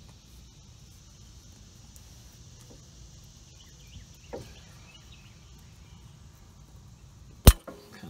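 Low background with a faint knock about four seconds in, then one sharp, loud click near the end as a worn brake pad is pushed by thumb out of a Honda CR-V's front caliper bracket, its backing plate snapping against the bracket.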